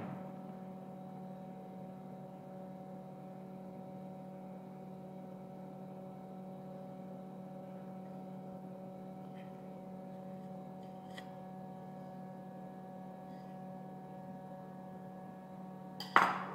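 Steady background hum made of several fixed tones, with a couple of faint clicks around the middle and a short louder clatter near the end.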